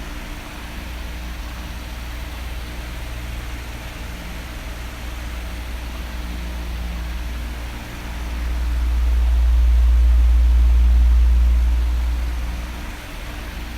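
Oscillating electric fan running with a steady whooshing hiss. A low rumble of air swells from about eight seconds in and fades again near the end, as the fan's airflow sweeps across the microphone.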